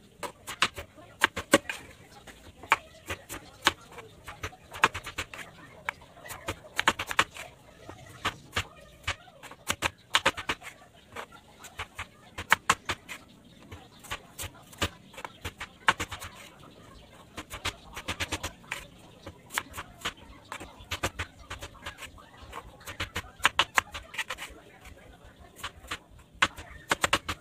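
Crinkle-cut knife chopping through raw potatoes onto a bamboo cutting board: quick runs of sharp knocks, repeated again and again as each potato is sliced.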